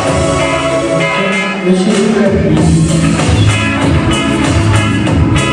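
Loud pop-rock music with guitar and a steady beat, with a brief drop about a second and a half in.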